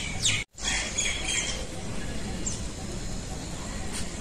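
Small birds chirping in short, high calls a few times over a steady low outdoor rumble; the sound cuts out for a moment about half a second in.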